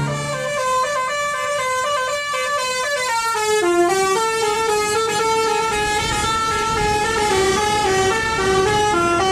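A tour bus's 'telolet basuri' musical horn playing a tune of short, stepped notes that runs on without a break.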